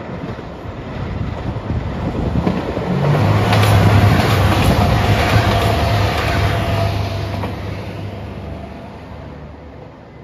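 JR Shikoku 2700 series diesel limited express passing close by: a steady engine drone and the rumble of wheels on rail swell to a peak about four seconds in, then fade as the train pulls away.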